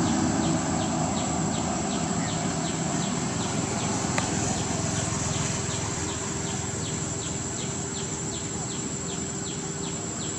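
Outdoor insect chorus: a steady high-pitched drone with a repeating short chirp about three times a second, over low background noise.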